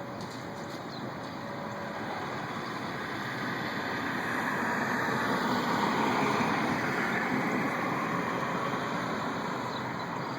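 Road vehicle passing: a rushing tyre-and-engine noise that swells to a peak about six seconds in and then fades away.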